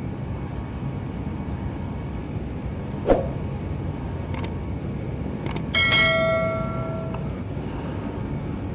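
Subscribe-button animation sound effect over a steady room hum: a sharp click about three seconds in, then faint clicks and a bell ding near six seconds that rings out for about a second.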